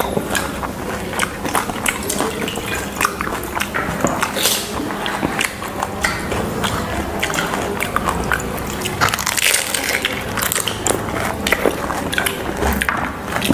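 Close-up eating sounds of puchka (pani puri): crisp hollow shells cracking and crunching in the mouth, with wet slurping and splashing as the shells are dipped in sour spiced water and eaten. The sounds come as many short crackles throughout.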